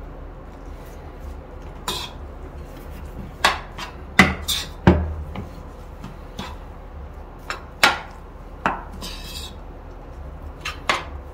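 Metal spoon clinking and scraping against a ceramic bowl as bibimbap is mixed, in irregular knocks with a couple of heavier ones near the middle.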